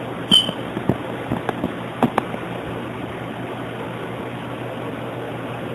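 Dachshund puppy pawing at a box to get at a toy: a short high squeak near the start, then a few quick knocks and taps over the next two seconds, then only a steady hiss.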